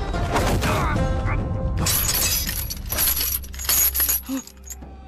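Fight-scene sound effects over background music: about four crashing, shattering hits, the last two close together, then the music carries on more quietly.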